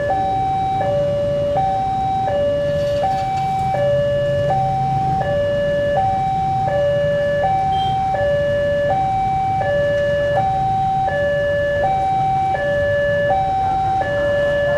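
Electronic two-tone railway level-crossing warning alarm, alternating steadily between a high and a low tone about every three-quarters of a second. A diesel locomotive rumbles low underneath as the train approaches.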